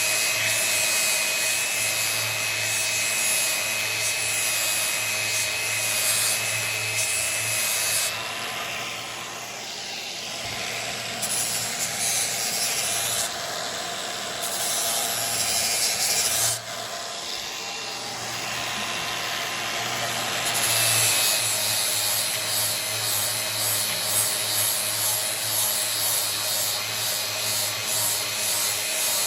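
Electric grinder with an abrasive pad grinding the cutting edge of a steel lawn mower blade, sharpening out nicks. The grinding runs continuously, eases off and turns duller for several seconds in the middle, then comes back at full strength.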